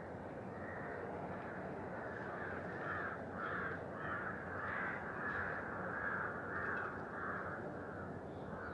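A run of harsh animal calls, repeated about twice a second, over a steady background hiss.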